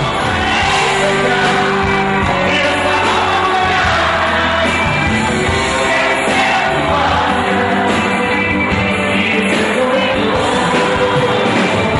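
Live sertanejo music: a male lead singer with his band, playing steadily.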